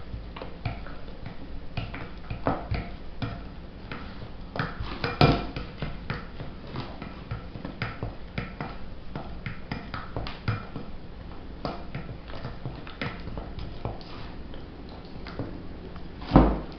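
A spoon stirring a thick mixture of condensed milk and chocolate powder in a bowl, with irregular clinks and scrapes against the bowl's sides. There are louder knocks about five seconds in and again near the end.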